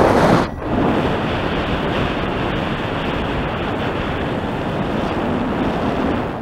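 Wind rushing over the microphone of a camera carried by a paraglider pilot in flight: a loud, steady rush, with heavier gusts in the first half-second.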